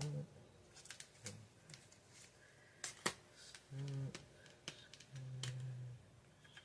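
Scattered light clicks and taps, with one sharper click about three seconds in, and a few short closed-mouth hums ("mm"), the longest lasting nearly a second near the end.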